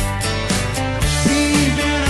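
Acoustic guitar strummed in a steady rhythm, with a man's singing voice coming in on a held, wavering note about a second in.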